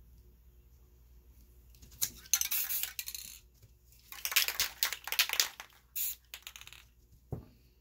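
Crumpled plastic wrap crinkling in several short bursts as it is pressed into and lifted off wet spray paint, followed by a soft thud near the end.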